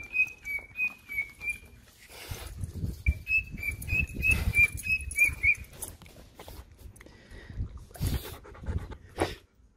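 A dog whining in short, high squeaks, about three a second, in two runs, while dogs jostle for treats, with thumps and rustling from handling close to the microphone and a loud knock near the end.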